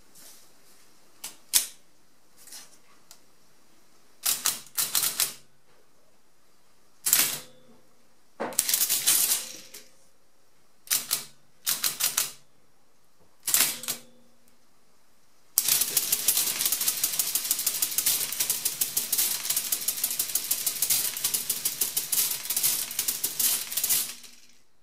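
Facit CA1-13 electromechanical pinwheel calculator: a few key clicks, then several short bursts of clattering mechanism as the numbers are entered. This is followed by about eight seconds of continuous rapid mechanical clatter as the machine runs long division, subtracting repeatedly until underflow, making a corrective turn and shifting the carriage, before it stops abruptly.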